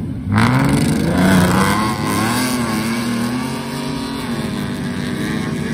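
Off-road racing vehicle's engine accelerating, coming in suddenly about a third of a second in, its pitch climbing and dipping as the revs rise and fall.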